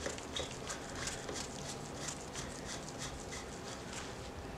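Faint, irregular light clicks and rustling from nitrile-gloved hands spinning a stainless steel muzzle brake by hand onto a rifle barrel's threads, over a crush washer.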